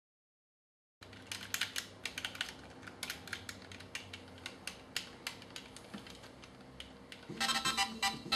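Rapid, irregular clicking of game-controller buttons being pressed. About seven seconds in, a phone ringtone starts playing over the clicks.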